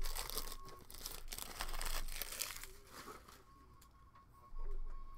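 Foil wrapper of a trading card pack being torn open and crinkled, crackling loudly for the first three seconds, then quieter. A low bump near the end.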